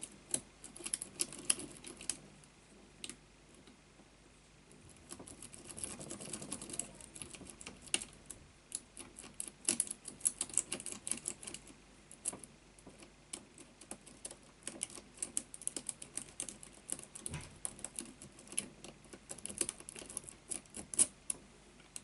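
A metal lock pick clicking and scraping against the pin tumblers inside a brass Avocet padlock's keyway while tension is held, in quick irregular clusters of light clicks with a quieter lull about three to five seconds in.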